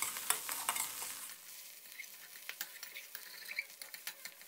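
Metal spatula scraping and tapping against a pan as crumbled, dry-fried scrambled eggs are stir-fried, with a light sizzle underneath; a little softer after about a second.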